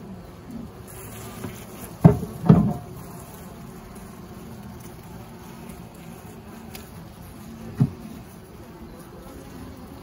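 Honeybees buzzing steadily around a frame of comb held out of an open hive, with two loud knocks about two seconds in and a softer one near the end.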